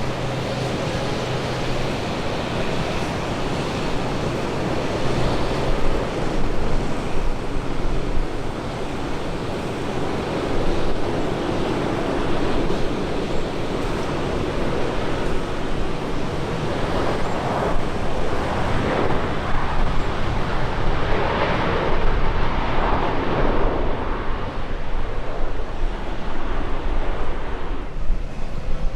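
Wind buffeting the microphone over the steady wash of surf breaking on a beach, swelling a few times in the second half.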